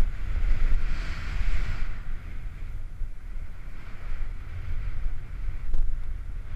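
Wind rumbling on the microphone as a splitboard rides down a snow slope, with the board hissing over the snow, strongest about one to two seconds in.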